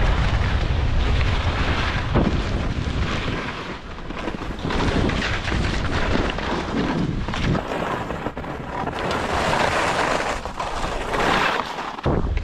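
Skis sliding and scraping over hard, thin snow, the hiss swelling and fading, with wind buffeting the helmet-mounted camera's microphone.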